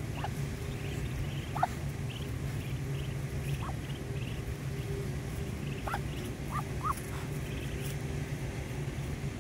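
Muscovy ducklings giving short, scattered peeps, about six clear ones with fainter higher chirps between, over a steady low background hum.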